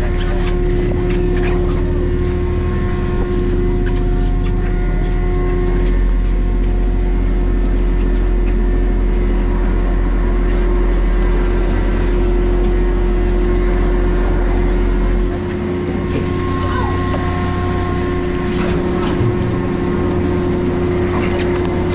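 Fishing boat's engine running steadily with a loud, even drone. About fifteen seconds in, the deepest rumble drops away and the drone carries on lighter.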